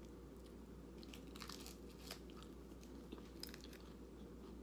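Faint crunchy chewing of tortilla chips with dip: a few scattered crisp crunches over a low steady hum.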